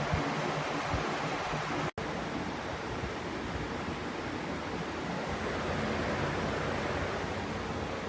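PELONIS 20-inch box fan running, a steady rush of air noise. The sound drops out for an instant about two seconds in.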